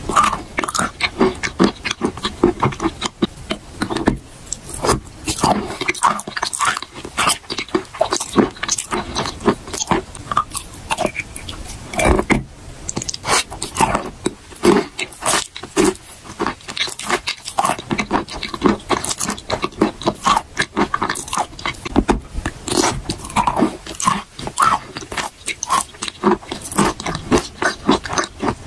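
Close-miked biting and chewing of wet chalk paste: a dense, irregular run of wet crunches and sticky mouth clicks, several a second.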